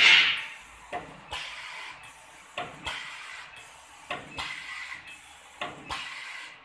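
Two-row drilling machine cycling under air power: a loud hiss of released air at the start, then pairs of sharp pneumatic clacks about every one and a half seconds, each with a short hiss, as the cylinders, clamps and drill head move.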